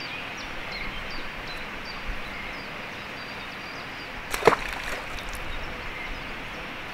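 A short splash about four and a half seconds in as a small carp is let go into the water.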